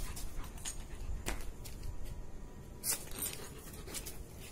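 Metal clip of a dog's leash clinking on a tiled floor as a German Shepherd noses and paws at it: a few sharp clinks, the loudest about three seconds in.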